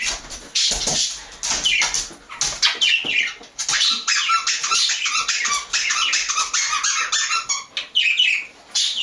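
Pet birds, an African grey parrot among them, chattering, whistling and squawking in a dense, unbroken run of short calls, busiest in the middle.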